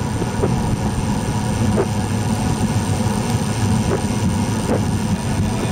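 Steady low rumble of wind buffeting an action camera's microphone and tyre noise from a road bike riding along a paved path, with a few faint ticks.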